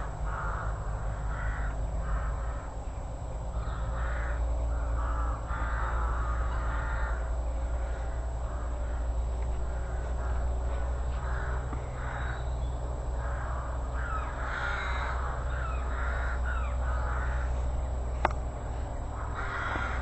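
Rooks and crows cawing, call after call throughout, some overlapping, over a steady low rumble.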